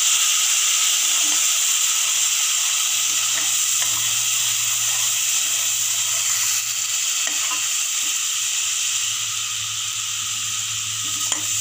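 Freshly added wet tomato, ginger and green-chilli paste sizzling loudly in hot mustard oil in a kadai, with a few scrapes of a slotted spatula stirring it. The sizzle eases a little in the last few seconds.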